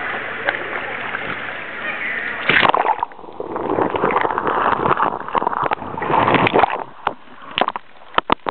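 Water splashing as a kayak is rolled over and back up, with a loud splash about two and a half seconds in and several seconds of churning water after it. A few sharp knocks near the end.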